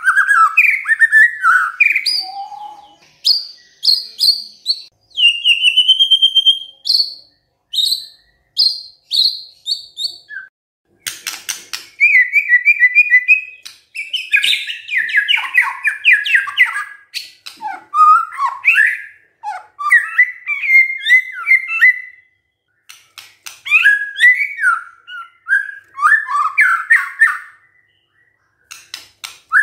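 White-rumped shama singing a varied, loud song of rich whistles, fast trills and sharp clicking notes, in phrases broken by short pauses.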